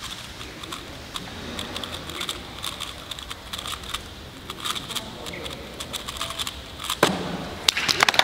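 Rapid, irregular plastic clicking of a 3x3 Rubik's cube being turned during a speed solve, over faint background chatter, with louder clatter near the end.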